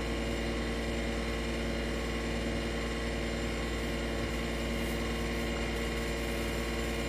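Steady, even hum of a window-type air conditioner running, made of several fixed tones.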